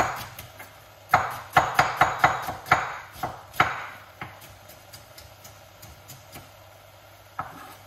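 A quick run of about nine sharp knocks from a kitchen utensil at work, coming in a cluster over about three seconds, then a few faint ticks and one last knock near the end.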